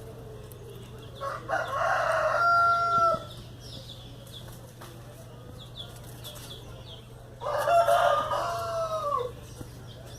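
A rooster crowing twice, each crow about two seconds long and ending in a long held note that falls away at the close.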